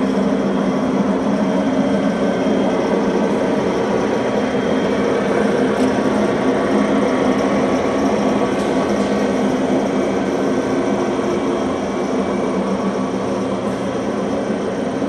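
Tarnow TUJ50 gap-bed engine lathe running under power, a steady hum and whine from its geared headstock with no change in speed.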